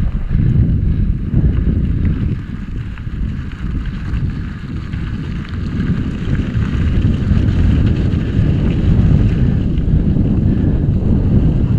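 Wind buffeting the microphone of a camera on a moving mountain bike: a heavy, gusting rumble, with a fainter hiss of the tyres rolling over dirt and gravel.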